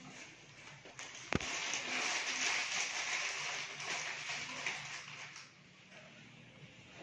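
A sharp click, then carbonated cola fizzing and hissing for about four seconds before it dies away: the foam from Mentos dropped into Coca-Cola inside a pork intestine.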